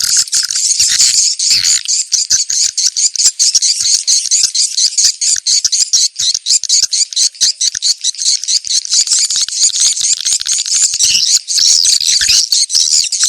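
Swiftlet lure call: a dense, unbroken stream of rapid, high twittering chirps from edible-nest swiftlets. This is the 'location check' call played at a site to draw swiftlets in and test it for a swiftlet house.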